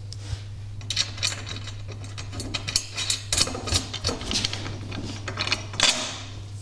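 Metal hand tools and bolt hardware clicking and clattering in quick, irregular taps while a golf cart's rear seat frame is being fastened, over a steady low hum.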